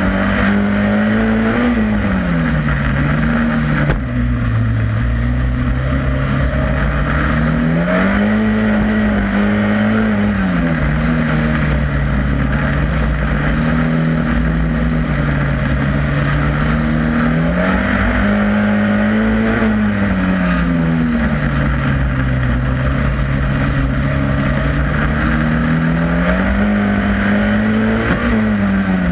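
Superstox stock car engine at racing speed, heard from on board the car. The revs climb on each straight and drop back into each bend, rising and falling about every nine to ten seconds as the car laps the oval.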